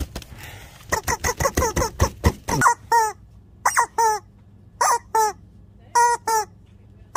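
Rubber chicken toy squeezed by hand again and again, giving short squawks that fall in pitch. A quick run of them comes about a second in, then spaced-out pairs toward the end.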